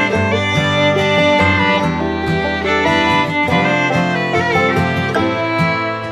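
Background music: an upbeat fiddle-led tune with plucked strings and a steady beat.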